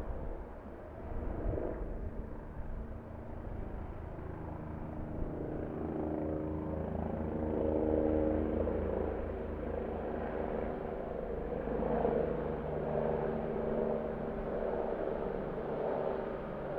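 Helicopter in flight: rotor blades chopping in a fast, even low beat under a steady engine hum, growing louder toward the middle.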